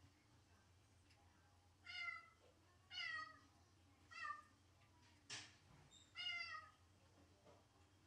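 A domestic cat meowing four times, each call short and falling in pitch, with a sharp click between the third and fourth: the lonely crying of a cat left alone.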